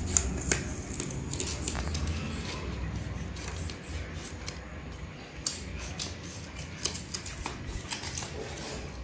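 Table knife and cutlery clicking and scraping against steel plates, with scattered sharp clicks throughout, over a low hum that fades about halfway.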